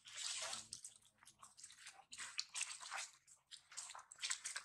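Dry fallen leaves crackling and rustling under macaques' feet as they walk over leaf litter, in irregular bursts: a longer one at the start, then shorter crackles.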